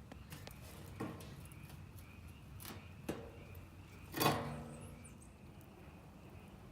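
Wood fire burning down to embers, crackling with a few sharp pops; the loudest pop, about four seconds in, has a short ringing tail.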